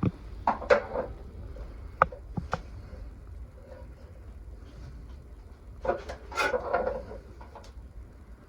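Scattered sharp clicks and knocks, with a louder bout of clatter a few seconds later, from tools and metal fittings being handled; a low steady hum runs underneath.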